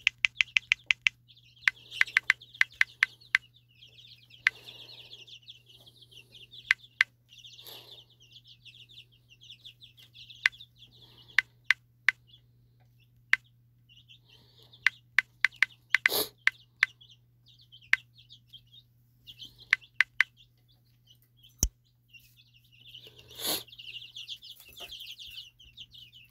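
Phone keyboard clicking in quick runs of taps as a search is typed, with bird calls in the background and a steady low hum.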